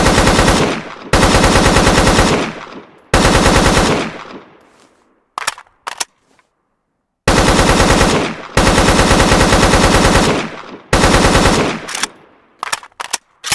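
AK-47 assault rifle (7.62×39mm) firing six bursts of rapid full-automatic fire, each ending in a fading echo. A few single shots come between them and near the end.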